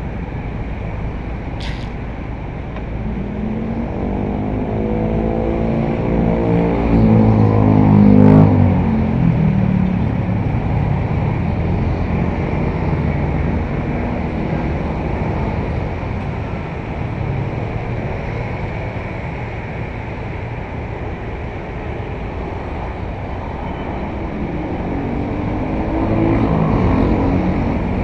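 Small backhoe's diesel engine running, revving up twice as the hydraulics work the arm, with a couple of sharp knocks.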